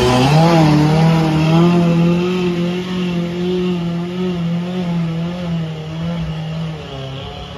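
4x4 SUV engine revved hard, rising in the first half second and then held at steady high revs for several seconds, easing off slightly near the end, as the truck pushes through deep mud up a steep trail.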